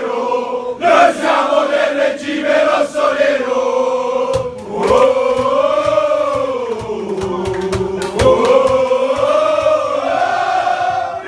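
A room of men singing a supporters' chant in loud unison, the long notes rising and falling together. From about four seconds in, a run of rhythmic thumps or claps keeps time for a few seconds.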